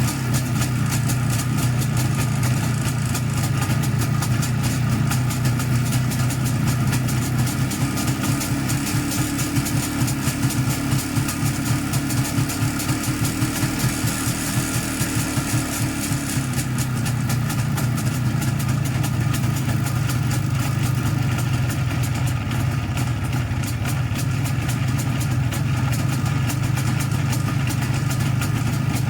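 IZh Jupiter 5 motorcycle's two-cylinder two-stroke engine running at idle, its note rising for several seconds in the middle before settling back. The engine rings and knocks, which the owner puts down to the piston group, a wrist pin or the crankshaft, with the primary chain also noisy.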